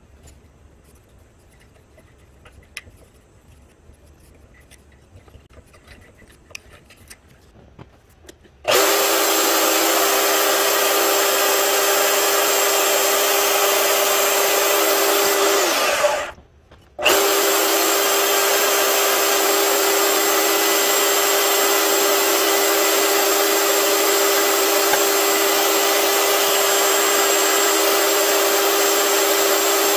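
Faint scraping with a few light clicks as a small hand tool works a hole in an ebony handle block. Then a benchtop band saw runs steadily, cutting the ebony block with a constant whine. It drops out for about a second two-thirds of the way through.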